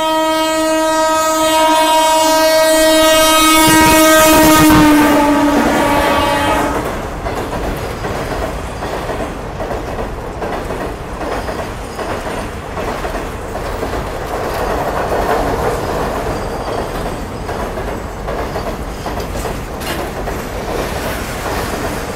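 A goods train's locomotive sounds a long horn for about six seconds, dropping slightly in pitch as it ends. Then its freight wagons rumble and clatter past the platform.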